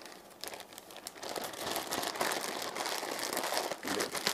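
Plastic zip-top bag of marinating beef strips crinkling and rustling as it is squeezed to push the air out and sealed shut, louder from about a second in.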